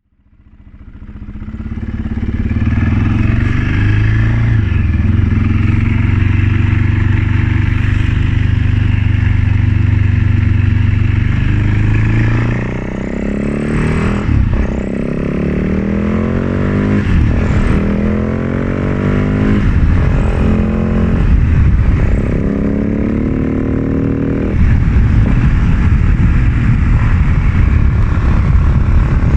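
2004 Husaberg FS 650's single-cylinder four-stroke engine running at a steady speed. From about twelve seconds in, its revs climb and drop again and again.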